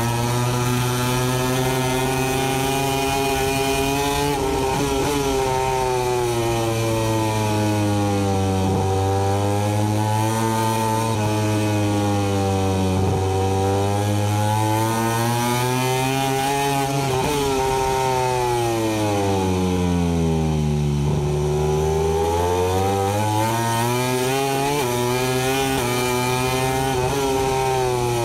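MotoGP racing motorcycle engine running at high revs around the track. The pitch dips briefly at gear changes, falls steeply about two-thirds through as the bike slows for a corner, then climbs again as it accelerates out.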